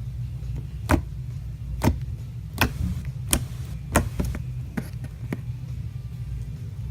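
Slime being pressed and squished by hand, giving sharp clicking pops about every second over a low steady hum.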